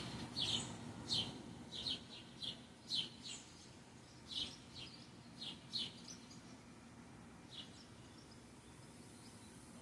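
Birds giving short, sharp chirps, many in quick succession for the first six seconds or so, then only an occasional call.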